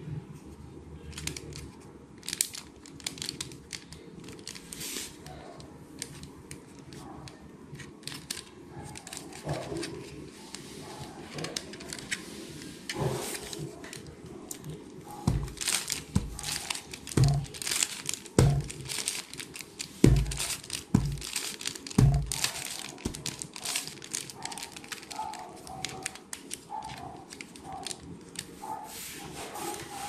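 Plastic 3x3 Rubik's cube being turned by hand, layer after layer: a fast, irregular run of clicks and clacks. Several low thumps come in the middle.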